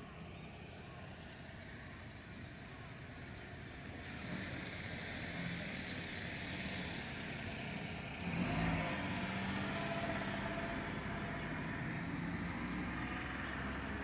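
Road traffic: a motor vehicle's engine noise builds up, jumps louder about halfway through, then holds as a steady engine hum with a low drone.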